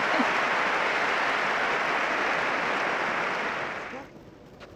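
Tennis crowd applauding a won point, a steady wash of clapping that fades out about three and a half seconds in.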